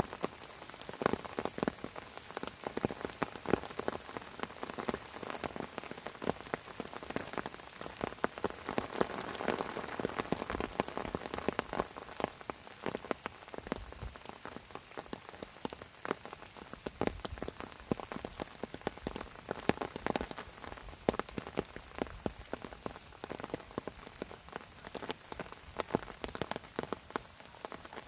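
Steady rainfall: a dense patter of raindrops landing on fern fronds, many small irregular ticks.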